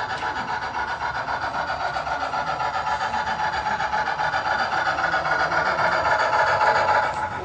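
Model train running along the layout track, a steady rapid whirring and clatter of motor, gears and wheels that grows louder as it nears and drops off about seven seconds in.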